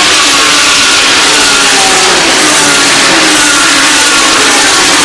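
GT3 race car engines at high revs, loud and steady, with engine notes gliding slightly in pitch.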